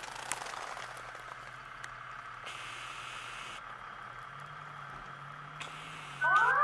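Steady low street noise with a brief hiss a little past two seconds in, then near the end an ambulance siren starts up, its wail rising steeply and much louder than everything before it.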